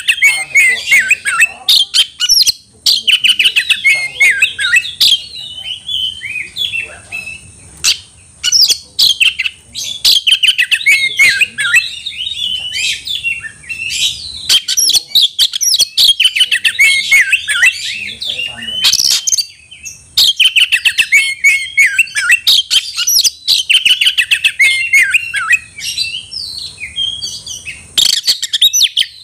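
Oriental magpie-robin (kacer) singing loudly and almost without a break: fast, varied phrases, halted by a few brief pauses. This is a bird in full, heated song, challenging a rival.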